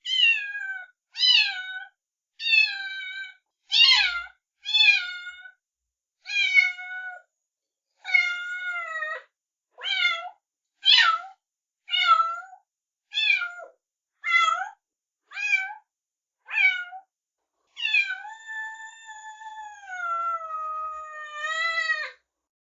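Kitten meowing over and over, about one high-pitched meow a second, each falling in pitch. Near the end it gives one long, drawn-out meow lasting about four seconds.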